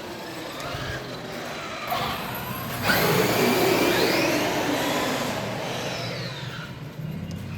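Electric RC cars' motors whining as they speed up and slow down. About three seconds in, one comes in suddenly louder with a rising whine that climbs for about a second and then falls away.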